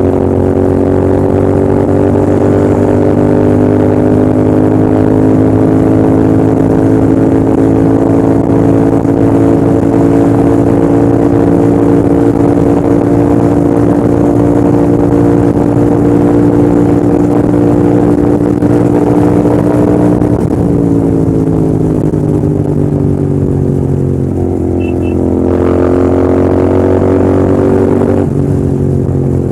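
Royal Enfield Continental GT650's 648 cc parallel-twin engine and exhaust running hard under load, its pitch slowly climbing. It eases off about two-thirds of the way in, dips and climbs again, then drops once more near the end.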